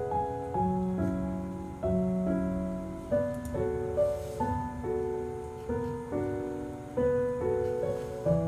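Background piano music: a slow melody over held chords, with new notes coming in about every half second.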